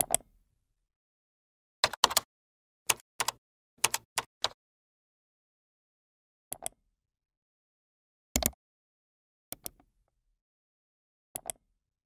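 Computer keyboard keystrokes and mouse clicks. A quick run of about nine key taps comes over two and a half seconds, then single clicks follow every second or two, with silence between.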